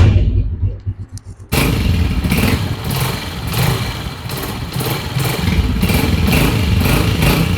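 A Honda CG125's single-cylinder air-cooled engine, started with a short loud burst and then running steadily with a regular pulse from about a second and a half in. It runs after shims were fitted under a pin that had been knocking, and the engine noise is cured.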